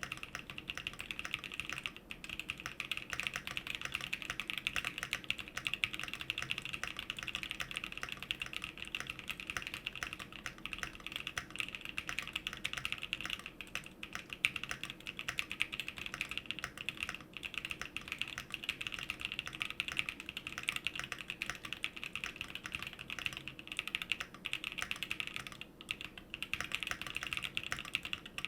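Continuous fast typing on a Fox Labs Leaf 65 custom mechanical keyboard with Gazzew Boba LT tactile switches on an aluminum plate, fully foamed with a PE foam mod: a dense stream of key clacks with brief pauses now and then.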